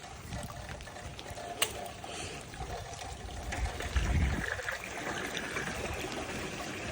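Water trickling in an overflowing gutter at a clogged downspout as it is being cleared, with a sharp knock about a second and a half in and a dull thump about four seconds in.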